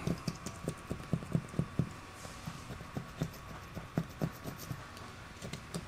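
Razor blade scraping cured windshield-repair resin off the glass in short, quick strokes. It comes through as a quiet, uneven run of small clicks and scrapes, several a second.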